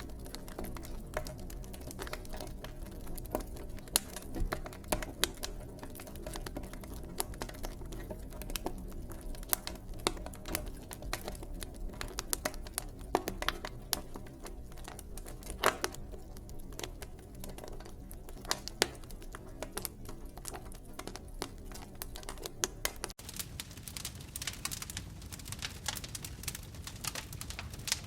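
Fire crackling: irregular sharp pops and snaps over a low steady rumble. About 23 seconds in the sound changes abruptly to a denser, hissier crackle with less rumble.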